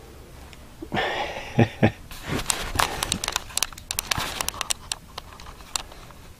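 Handling noise: a rustle with two soft knocks starts about a second in, then a run of sharp clicks and crackles as the camera is moved about and a hand reaches to lift the moth off the blanket.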